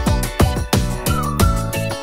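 Background music with a steady, fast drum beat and a high lead melody.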